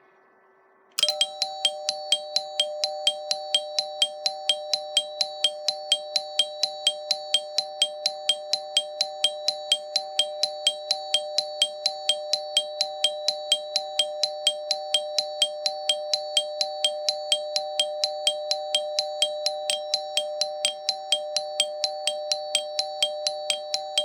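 Railway ATS (automatic train stop) warning alarm sounding: a metallic bell struck rapidly and evenly, about three strikes a second, over a steady ringing tone. It starts suddenly about a second in and keeps going.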